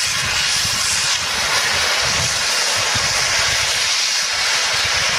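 Steam traction engine venting a loud, steady hiss of steam.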